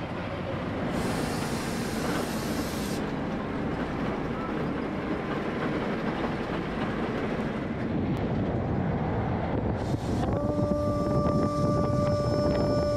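Bus travelling on a mountain road: a steady rumble of engine and road noise, with wind rushing over the microphone at the open window. About ten seconds in, a steady held tone starts and keeps going.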